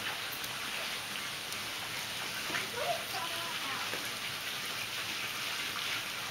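Steady splashing hiss of water falling into a swimming pool, with a brief faint voice about halfway through.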